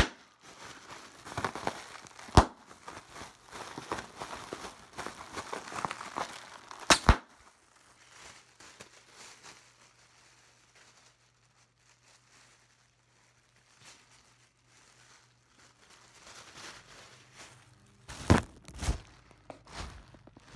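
Thin plastic film crinkling and crumpling in the hands, with a few sharp snaps in the first few seconds. It goes quiet for a long stretch in the middle, then crinkles loudly again near the end.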